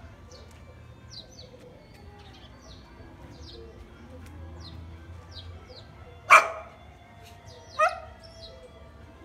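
A dog barks twice, about six and eight seconds in, over small birds chirping and a low steady background hum.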